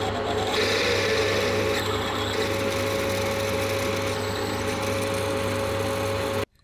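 Metal lathe running while a twist drill bores into the end of a spinning metal workpiece: a steady machine hum with a constant tone under the noise of the cut. It cuts off suddenly near the end.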